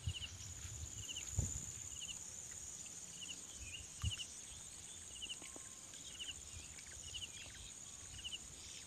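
Insects trilling steadily on a high note, with a short pulsed chirp repeating about once a second, and a few soft low thumps.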